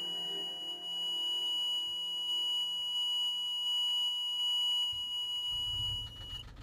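A steady, high-pitched electronic tone, like a piezo beeper, sounding continuously and then cutting off suddenly near the end.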